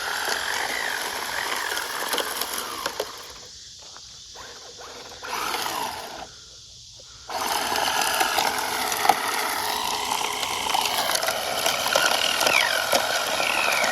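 A 1/16 scale Traxxas Slash RC truck stuck in loose dirt, its electric motor and gears whining up and down as the spinning wheels fling dirt and rocks. The throttle drops off briefly twice, then comes back on.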